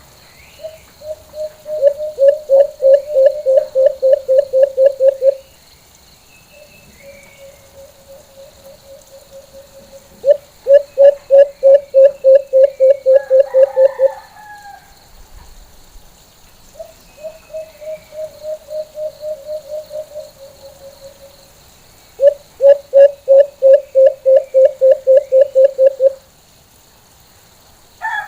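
White-eared brown dove giving its full call: a series of low hoots repeated quickly, starting soft and swelling into a loud run of a dozen or more notes. The call comes four times, with short pauses between.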